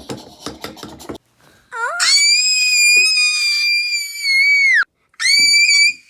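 A very high-pitched, drawn-out scream held for about three seconds, sliding up at its start and bending down as it breaks off; after a short pause a second scream starts. Before the screams there is a moment of rustling.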